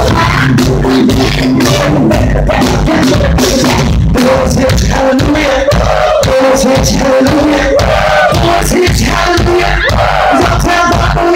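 Live band playing loud: a woman singing lead over electric bass guitar and a drum kit.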